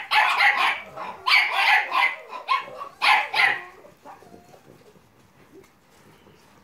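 Staffordshire terrier puppies barking, a quick run of sharp barks in the first few seconds that then stops, leaving only faint rustling.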